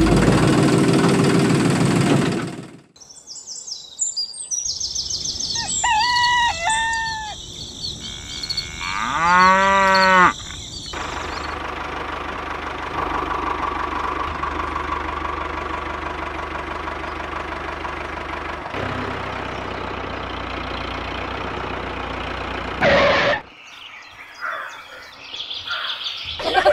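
Farmyard animal and bird calls, including one rising-then-falling call about nine seconds in, give way to a steady engine-like drone of a tractor that runs for about twelve seconds. A short loud burst breaks in near the end, followed by faint chirping.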